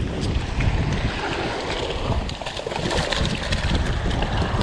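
Strong wind buffeting the microphone in uneven low gusts, with surf washing on the beach behind it.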